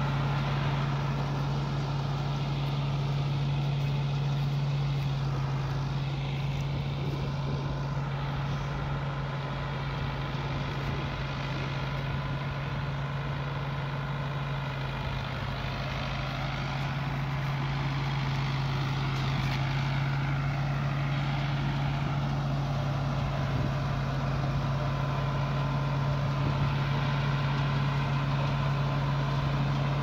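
Tractor engine and the PTO-driven rice thresher it powers, running steadily under load as the thresher strips grain from the rice straw and blows the straw out onto a pile. A continuous, even drone with a strong low hum.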